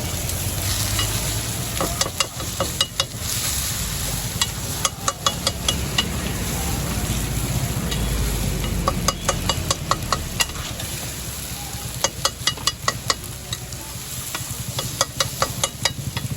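Metal spatulas clacking in rapid bursts on a hot iron griddle, chopping parotta into kothu parotta, over a steady sizzle of frying. The bursts of clacks come again and again, with brief pauses between them.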